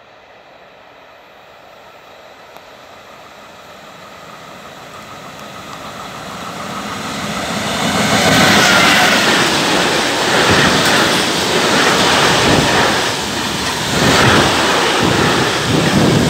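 Freight train approaching and passing close by: a rumble grows steadily louder over the first eight seconds as the locomotive nears, then the wagons run past loud, with repeated clacks of the wheels on the rails.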